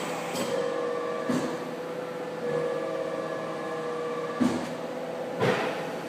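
CNC tube-bending machine running: a steady motor whine that comes and goes in stretches, with a few clunks from the machine's moving parts.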